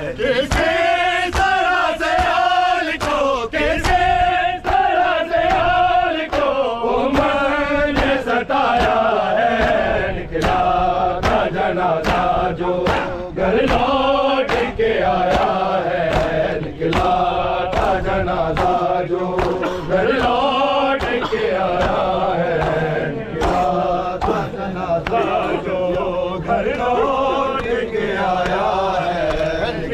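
A group of men chanting an Urdu noha in unison, amplified through loudspeakers, with a steady rhythm of sharp slaps from mourners beating their chests (matam) in time with it.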